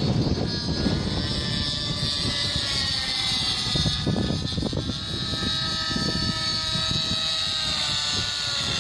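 Two-stroke nitro glow engine and rotors of a TSA Infusion 600N model helicopter running in flight, a steady whine that drifts slightly up and down in pitch as the helicopter moves, over a gusty low rumble.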